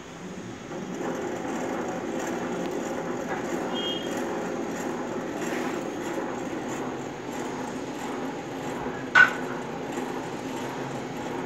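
Six-paddle digital flocculator (jar test apparatus) running, its motor drive turning the stirring paddles with a steady mechanical hum that comes up about a second in. A single sharp click about nine seconds in.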